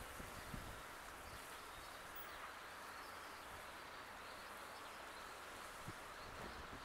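Faint outdoor garden ambience: a steady, even background hiss, with a few soft low bumps about half a second in and again near the end.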